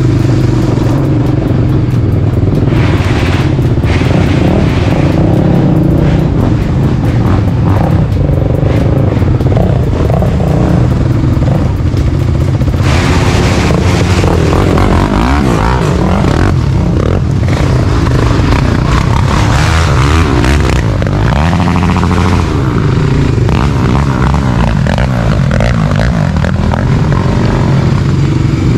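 Motor vehicle on the move: a steady engine drone with road noise, and music playing along with it.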